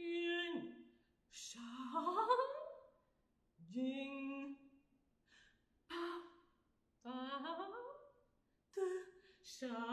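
Unaccompanied female alto voice singing short separate phrases with silences between them: several slow rising pitch slides, one quick falling slide near the start, and a few breathy hissed sounds, in a contemporary extended-technique vocal piece.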